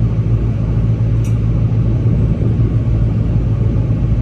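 Diesel engine of heavy construction machinery running steadily with a loud, even low drone. There is one brief high click about a second in.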